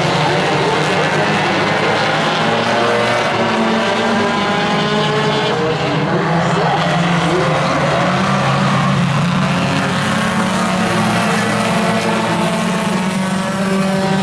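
A pack of Tuner-class compact race cars lapping a short oval, several engines at high revs overlapping, their pitches sliding up and down as they rev and pass.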